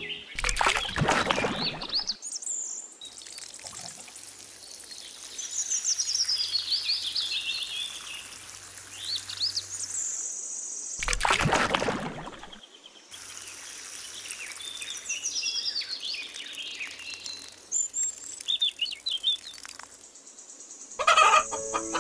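Water poured from a small watering can into a shallow pond, two short gushes about ten seconds apart, with small birds chirping throughout.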